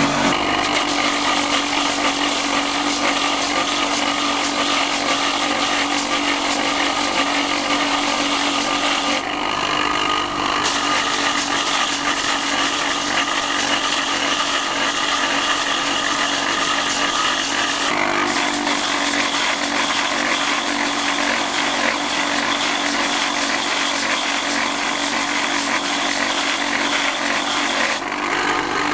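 Steady whir of an electric motor driving a spinning grinding wheel, with scraping and grinding as young coconut husk is shaved down. The sound shifts slightly a few times but never stops.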